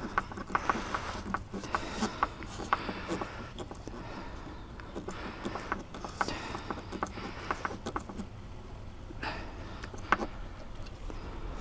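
Small screws driven by hand with a screwdriver through a plywood template into a fibreglass deck: irregular scraping and clicking as the blade turns, in short spells with pauses between.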